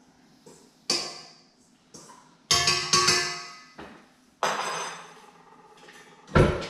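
Sharp metal clanks and knocks, each ringing briefly, as a stand mixer's metal beater and bowl are handled: about five in all, the loudest near the end.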